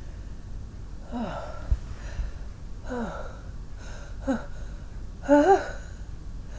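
Four short voiced gasping breaths, each an "ah" falling in pitch, the last and loudest rising then falling: the build-up to a sneeze from a tickling nose, with no sneeze coming. A brief low thump comes early in the series.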